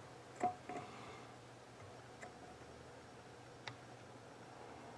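A few faint, scattered light ticks and clicks from small tools handled against a circuit board while a soldering iron heats a relay pin for desoldering. The clearest tick comes about half a second in.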